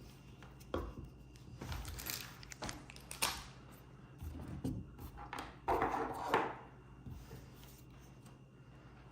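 Handling noise: scattered light knocks, taps and rustles for about six and a half seconds, the loudest near the end, then only a faint steady low hum.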